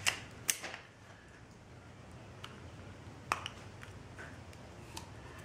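Plastic 35mm film canisters being handled and one prised open, giving a few scattered sharp clicks.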